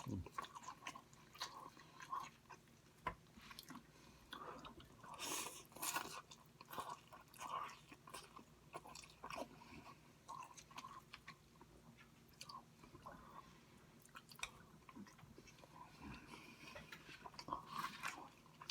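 Quiet, irregular chewing and wet mouth sounds of a person eating takeout food close to the microphone.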